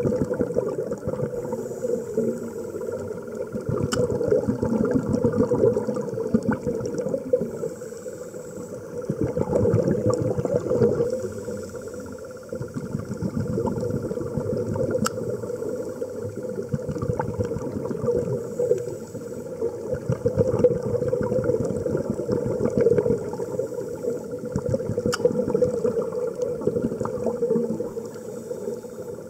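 Underwater sound picked up by a dive camera: a dense bubbling, crackling rumble that swells and fades every few seconds, with a few sharp clicks.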